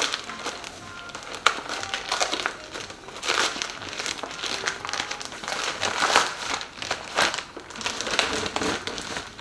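Packaging crinkling and rustling on and off as it is handled and opened.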